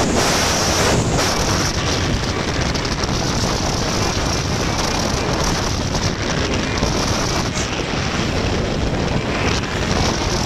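Wind rushing over a camera's microphone as it is carried downhill on skis, a steady unbroken rush of noise.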